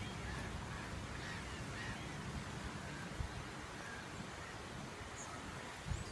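Northern bald ibises giving a few faint, short calls over a steady low rumble, with a soft low bump near the end.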